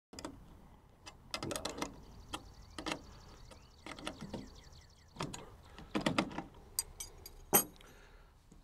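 Metal clinks and knocks of small hardware (pins, bolts and washers) being handled and fitted into a steel tailgate-ladder bracket, with a brief run of fast light ticking in the first half.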